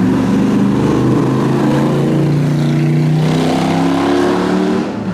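A supercar's engine running loud under acceleration, a deep steady note that sinks a little in pitch over the first few seconds.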